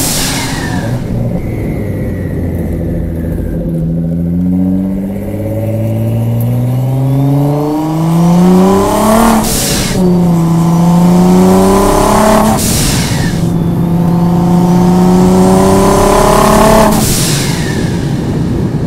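Nissan GT-R R35's twin-turbo V6 pulling hard, its note climbing in pitch through long stretches of acceleration with a faint rising turbo whistle. A loud turbo whoosh three times, about nine and a half, twelve and a half and seventeen seconds in, each followed by a drop in the engine note.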